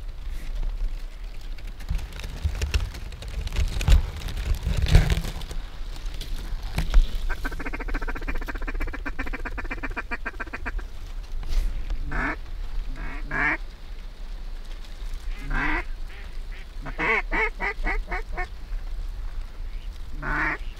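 Mallard quacking: a rapid, even run of chattering notes in the middle, then several short bursts of harsh, falling quacks toward the end. Low wind rumble and a few bumps come in the first few seconds.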